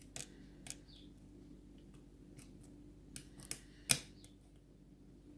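Lock pick working the pins of a pinned challenge lock under light tension: scattered small metallic clicks, the loudest a little before four seconds in. The many little clicks with little movement of the core are, as the picker assumes, the sign of serrated pins.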